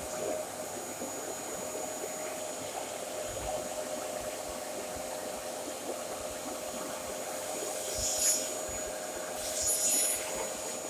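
Dyson DC33 Animal bagless upright vacuum cleaner running with a steady whine, with two short bursts of hissing about eight and ten seconds in.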